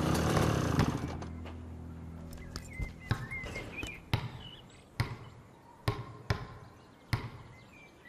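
A red rubber ball bouncing on concrete: a string of sharp slaps, roughly one a second, starting about two and a half seconds in. A low drone dies away in the first second.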